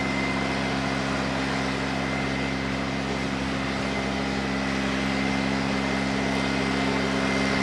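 Steady mechanical hum made of several fixed low tones, with a thin high whine above it, as from a running engine or motor.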